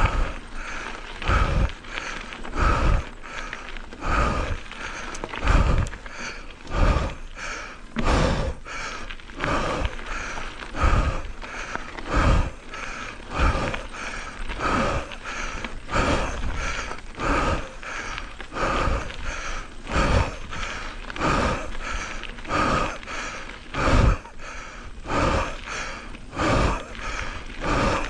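A mountain biker breathing hard in a steady rhythm, about one breath every second and a half, over the mechanical rattle of the bike on the trail.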